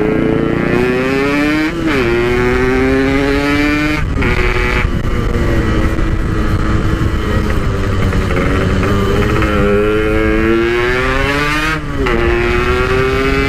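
Yamaha RX-King two-stroke engine breathing through a Packing Power PK1 exhaust, accelerating hard: its pitch climbs steadily and drops back at each gear change, about three times.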